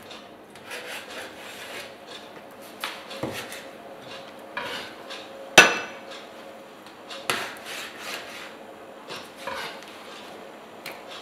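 A kitchen knife cutting flounder into pieces on a plastic cutting board, with scattered knocks of the blade and fish on the board. The sharpest, loudest knock comes about halfway through.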